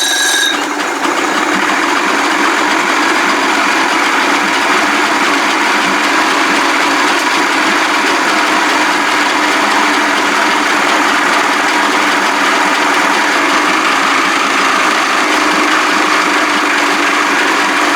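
Evinrude 55 hp two-stroke outboard engine running steadily at a raised idle with its fast-start lever up.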